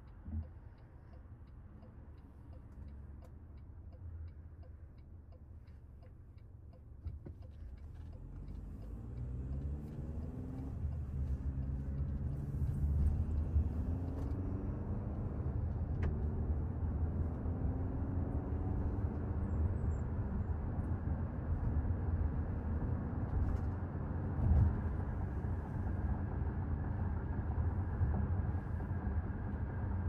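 Inside the cabin of a 2024 Toyota RAV4 Limited: the turn signal ticks steadily at first. About eight seconds in, the car pulls away, and the engine's note climbs and drops back as the eight-speed automatic shifts up, with road and tyre rumble building and then holding steady.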